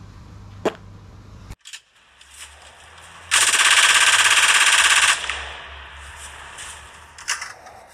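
An edited-in sound effect: a loud, very fast rattle of sharp clicks lasting about two seconds, then a few single clicks near the end. Before it, a low steady hum of garden ambience cuts off about a second and a half in.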